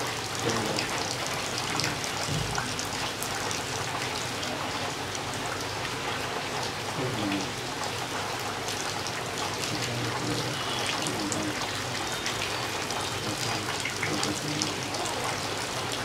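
Heavy rain falling steadily, a constant hiss with many individual drops ticking close by.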